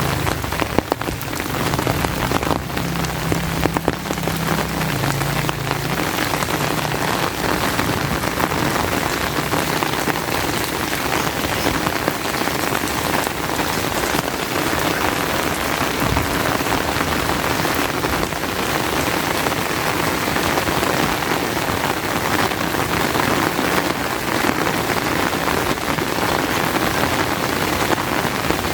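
Steady rain falling. For the first few seconds a motor vehicle's engine is also heard, fading away.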